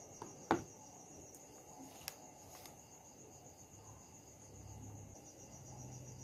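Faint, high, evenly pulsing trill of insects, with a few soft clicks; a low hum comes in about two-thirds of the way through.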